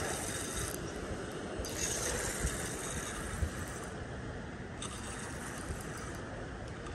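Spinning reel being cranked to bring in a hooked bullhead, a steady mechanical whirr under background noise, with a couple of soft low knocks.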